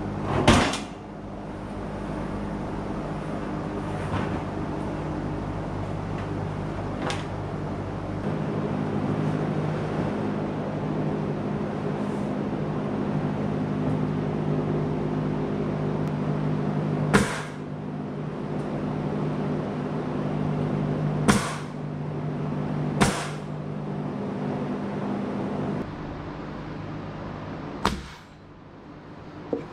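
Pneumatic framing nailer driving nails into lumber: single sharp shots at irregular intervals, about seven in all, the loudest about half a second in. Under them runs a steady mechanical hum that cuts off a few seconds before the end.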